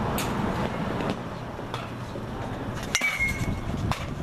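Steady outdoor noise with a few light clicks. About three seconds in comes one sharp metallic ping that rings briefly, a hit in a baseball batting cage.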